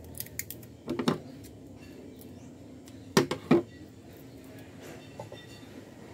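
Clear adhesive tape being peeled off its roll and handled, with a few short clicks and rasps. The loudest two come close together about three seconds in.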